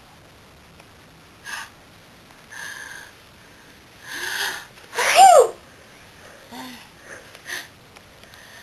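A woman sneezing: a couple of short sniffs and a drawn-in breath, then one loud voiced sneeze about five seconds in, falling in pitch. A few faint short sounds follow.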